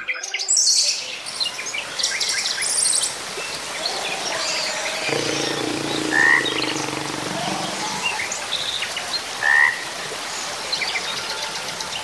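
Amazon rainforest soundscape: many birds calling over a dense chorus of wildlife. Two clear rising whistles come about six and nine and a half seconds in, and a lower droning call sounds from about five to eight seconds in.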